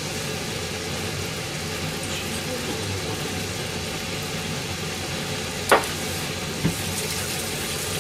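Steady sizzling of food deep-frying in hot oil, under a constant hum. A little past the middle come two sharp knocks about a second apart, the first the louder.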